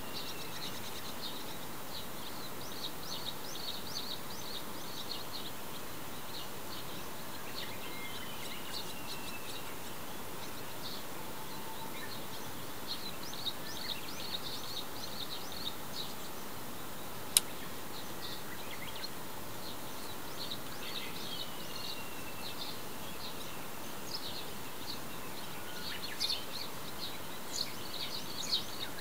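Small birds chirping throughout in runs of short high chirps, with a few falling whistled notes, over a steady background hiss. A single sharp click about seventeen seconds in.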